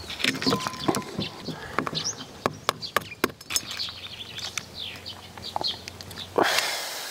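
Fingers cracking and peeling the shell off an unhatched duck egg: a quick, irregular run of sharp crackles and snaps. Birds chirp in the background, and a short rushing noise comes near the end.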